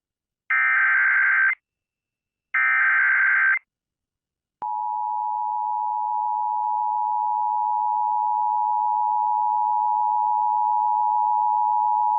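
Emergency Alert System activation: the last two of the three SAME header data bursts, each a harsh digital screech about a second long, then after a short gap the steady two-tone EAS attention signal starts and holds. Together they mark the start of an emergency alert, here a severe thunderstorm warning being relayed to other stations.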